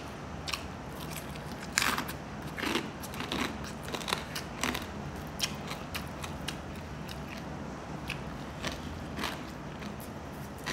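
Close-up crunching and chewing of crispy pork back-fat chicharon eaten with rice: a string of sharp crunches, loudest about two seconds in and growing sparser toward the end.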